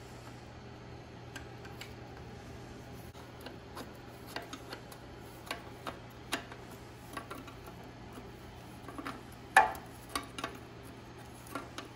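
Irregular small metallic clicks and taps as a flared steel fuel-line fitting is wiggled and started into a mechanical fuel pump, with one louder knock about nine and a half seconds in, over a faint low hum.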